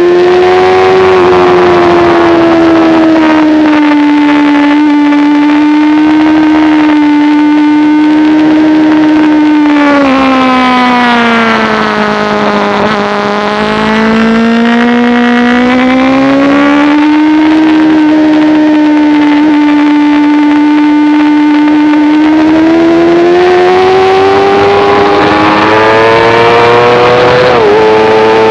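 Sport motorcycle engine running at high revs on a racetrack. The pitch holds steady, drops for a few seconds about twelve seconds in as the bike slows, then climbs again and rises further near the end.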